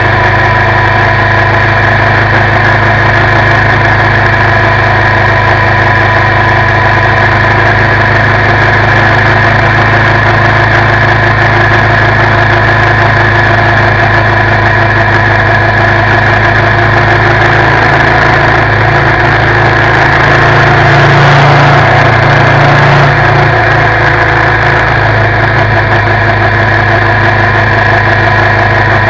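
2019 Suzuki V-Strom 650's 645 cc V-twin engine running steadily at road speed, heard close up at the front of the bike over a steady rush of wind and road noise. About two-thirds of the way through, the engine note rises and gets a little louder for a few seconds, then drops back to its cruising pitch.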